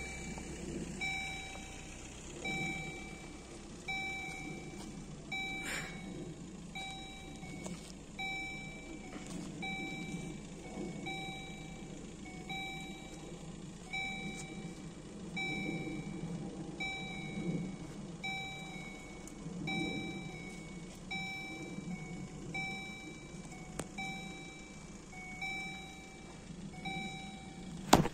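EHL electronic warning bell of an automatic level crossing, dinging about once a second while the crossing is closed for an approaching train.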